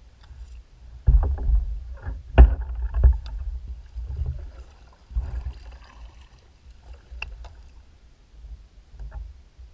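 Kayak moving on the water: low rumbling with a run of knocks and bumps on the hull, the sharpest about two and a half and three seconds in, then lighter knocks and clicks.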